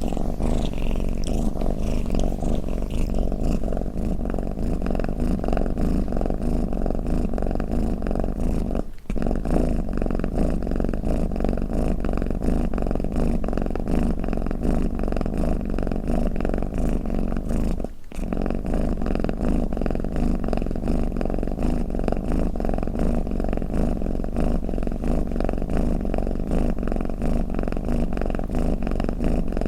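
Domestic cat purring, a low, steady, continuous rumble of rapid pulses, with two very brief breaks about nine and eighteen seconds in.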